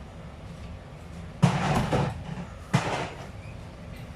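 Two sudden clattering knocks over a steady low hum: a louder one about a second and a half in, lasting about half a second, and a shorter one about a second later, as kitchen things are handled.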